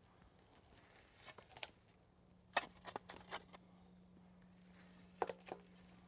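Shovel working loose soil while backfilling a post hole: a few scattered short scrapes and soft thuds of dirt.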